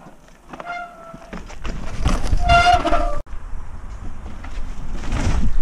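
Mountain biking on a woodland dirt trail: low wind and rolling rumble on the microphone, with two short, high, steady-pitched calls, one about a second in and a louder one about two and a half seconds in.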